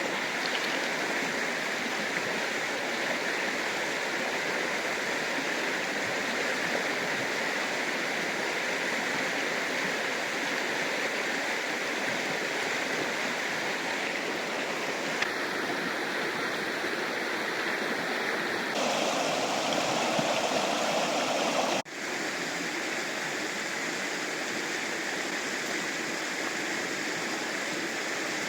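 Fast, turbulent river water rushing steadily. The sound changes abruptly a few times, with a sharp brief drop in level late on, as the recording cuts between spots along the river.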